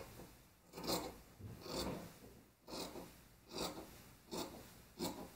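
Fabric shears cutting through denim and lining, about six snips a little under a second apart, trimming a seam allowance to about a quarter inch.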